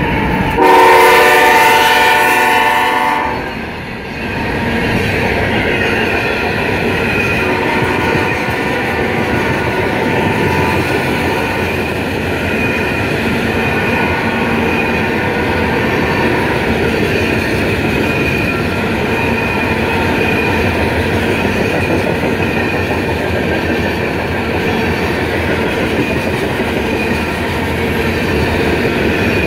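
A Nathan K5HLL five-chime air horn on a GE Evolution-series (GEVO) diesel locomotive blasts for about three seconds at close range. Loaded covered hopper cars then roll steadily past, with continuous wheel-on-rail noise and clickety-clack over the rail joints.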